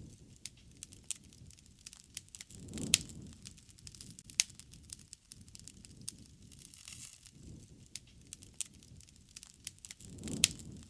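Wood campfire crackling: scattered sharp pops and snaps over a soft low rumble of burning flames, which swells briefly about three seconds in and again near the end.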